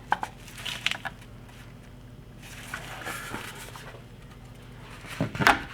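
Handling noise of Mosin-Nagant rifle parts being fitted by hand: a few light clicks in the first second, then a louder pair of knocks about five seconds in. A faint steady hum runs underneath.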